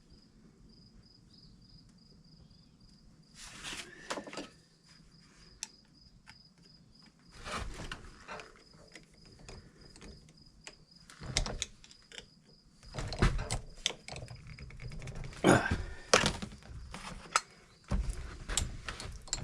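Scattered metal clicks, clinks and knocks as a small bench vise is handled and fitted back together, the knocks growing heavier and more frequent in the second half. A faint, high, pulsing chirp runs underneath.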